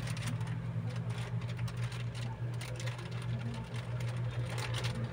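Crinkling and rustling of a plastic-wrapped gift as it is handled and turned over, in short irregular crackles, over a steady low hum.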